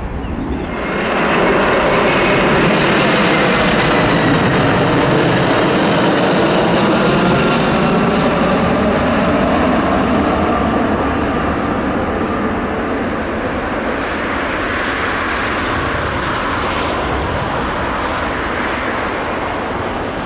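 Jet airliner passing low overhead: its engine noise swells about a second in, stays loud, and the whining tones in it slide slowly down in pitch as it goes by, easing off a little near the end.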